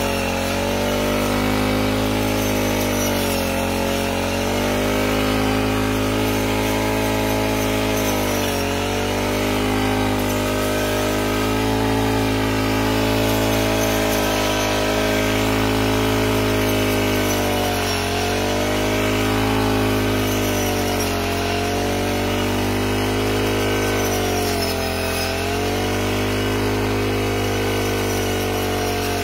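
Balwaan BX-35 side-pack brush cutter with a 35cc four-stroke petrol engine, running at high speed while its blade cuts through tall grass stalks. The engine pitch sags briefly every few seconds as the blade bites into the stalks, then picks back up.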